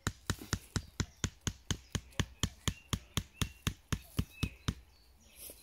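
A hatchet's head tapping a peg into the ground: a quick, even run of sharp knocks, about four a second, that stops near the end.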